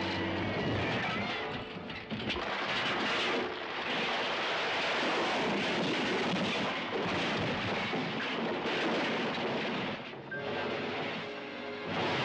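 Alfa Romeo Giulia TI sedan crashing and tumbling down a rocky slope: a dense, continuous rumble and clatter of metal and rock with falling stones and debris. It eases briefly about two seconds in and again near the end.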